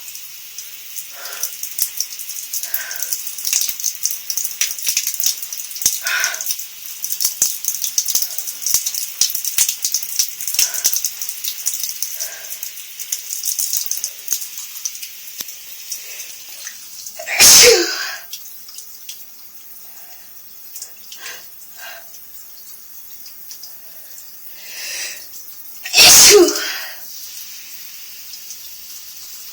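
Shower spray hissing and pattering, with two loud sneezes from a person with a head cold, one about halfway through and one near the end. The second comes after a short rising in-breath.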